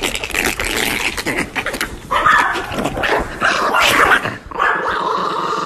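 A dog vocalizing, with two drawn-out high calls: one about two seconds in and another around three and a half to four seconds in.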